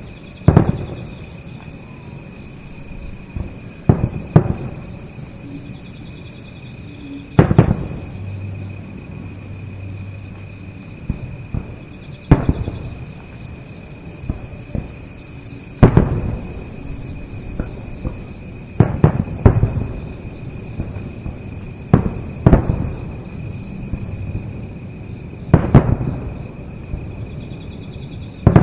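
Aerial firework shells bursting: about a dozen booms at irregular intervals a few seconds apart, some in quick pairs or triplets, each trailing off in a rolling echo. A steady high insect chirring runs underneath.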